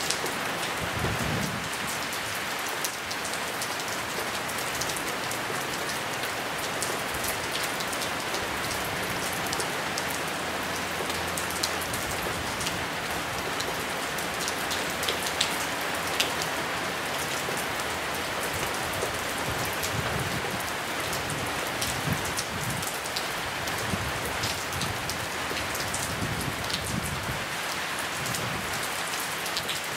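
Steady rain falling, an even hiss with close raindrops ticking sharply here and there.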